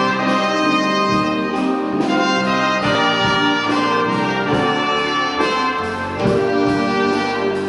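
Orchestral music with brass leading, sustained trumpet-like notes over a full accompaniment.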